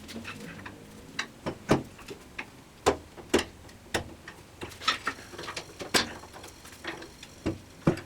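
Irregular metallic clinks and knocks of tools and cast-iron saw parts being handled during disassembly of a vintage Unisaw table saw, about fifteen in all. A few strokes leave a short, high metallic ring, the clearest about six seconds in.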